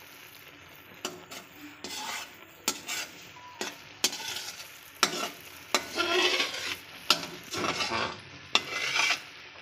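A metal slotted spatula scraping and stirring around a metal kadhai, with sharp clicks where it knocks the pan, starting about a second in. Under it, milk cream (malai) sizzles as it melts down on low heat, being stirred so it doesn't stick to the bottom.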